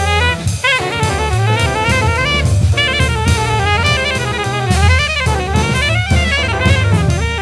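Small jazz group playing: a horn runs a fast, winding melodic line over a busy drum kit and a bass.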